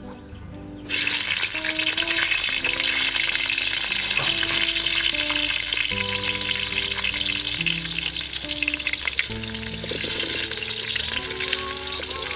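Sliced eggplant sizzling loudly in hot oil in a wok. The sizzling starts abruptly about a second in, as the slices hit the oil, and near the end a wooden spatula stirs them.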